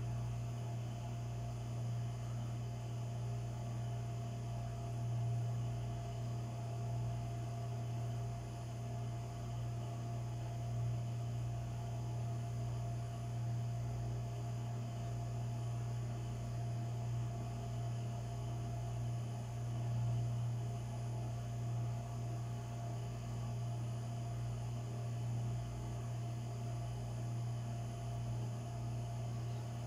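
Steady low mechanical hum with a faint higher steady tone above it.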